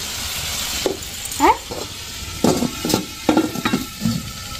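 Tomatoes sizzling in oil in a metal kadhai, broken by several metal clinks and a short scrape as a domed metal lid is set over the pan.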